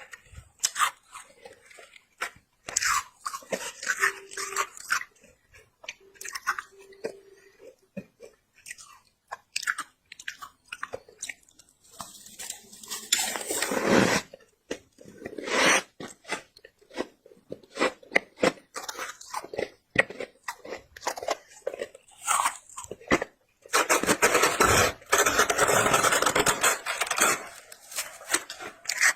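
Close-up crunching of a person biting and chewing mouthfuls of squeaky freezer frost: crisp crackling bites, with longer spells of dense crunching about halfway through and again near the end.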